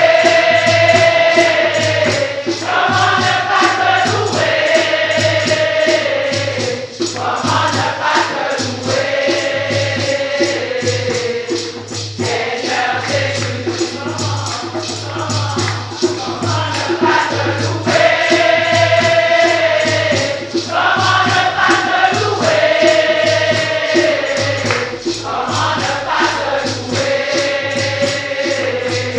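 Many voices singing a praise song together in long sung phrases with held notes, over a steady percussive beat.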